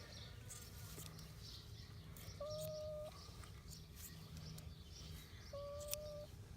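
Electric hair clippers buzzing steadily while clipping a cat's fur. Two short calls at an even pitch, each under a second, come about three seconds apart.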